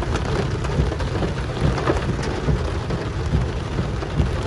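Torrential rain pelting a car, a dense continuous patter with a heavy low rumble underneath.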